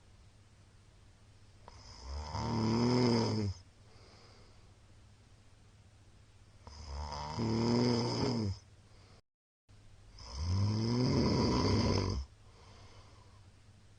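A sleeping middle-aged man snoring: three long, pitched snores, each lasting a second and a half to two seconds, with quiet breathing in between.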